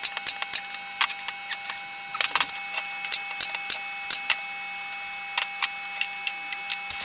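Irregular light clicks and knocks of wooden drawer parts being handled and fitted together, a few taps close together about two seconds in, over a faint steady high whine.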